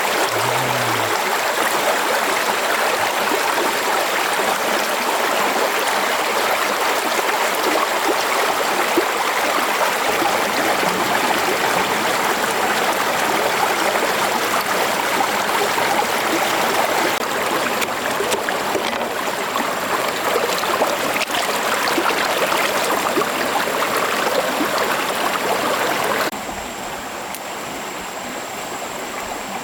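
Stream water running steadily over rocks. Near the end it turns abruptly quieter.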